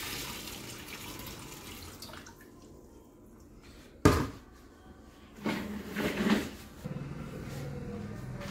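Water pouring from a plastic bucket into a glass aquarium, tapering off after about two seconds. About four seconds in, a single sharp knock as the empty plastic bucket is set down on the table.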